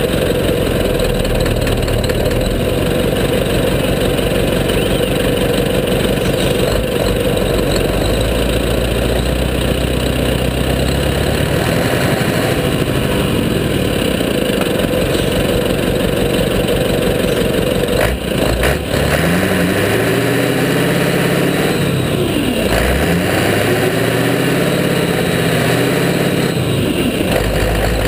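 Scania 143 race truck's diesel engine running at a lumpy, pulsing idle, then revved up and down several times in the last third.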